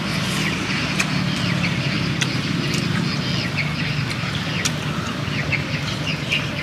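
A person eating grilled snails, slurping the meat from the shells and chewing, with scattered small clicks. Birds chirp briefly over a steady low hum.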